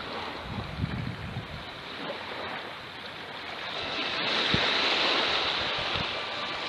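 Small waves washing up on a sandy beach, the surf hiss swelling about four seconds in and easing off, with wind noise on the microphone.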